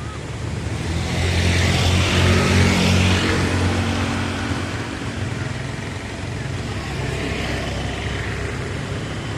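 Diesel-electric locomotive passing close by with its engine running as a low steady hum under a hiss of wheel and rail noise. The sound swells to its loudest about two to three seconds in, then eases off.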